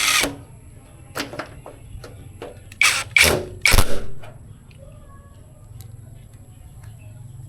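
Power drill-driver running in short trigger bursts while driving the door latch screws into an aluminum door frame: one burst at the start and three quick ones close together about three seconds in, with a few light metallic clicks between.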